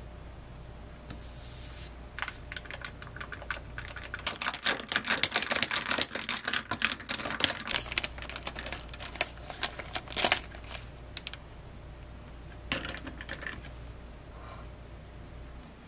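Plastic bag crinkling and rustling around dried lemon slices, in a dense run of short crackles that peaks about ten seconds in; a few scattered crackles follow.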